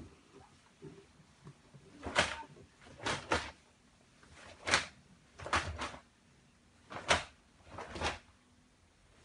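Karate uniform snapping sharply with the strikes and blocks of a Goju-ryu kata: six quick cracks about a second apart, several of them doubled.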